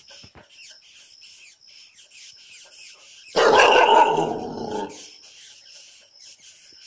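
Dog barking once, loudly, a little past halfway through; the bark is drawn out and fades over about a second and a half.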